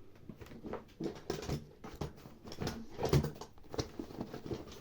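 Scattered small clicks, taps and rustles of hands handling the opened plastic housing and freed power cable of a corded hammer drill under repair.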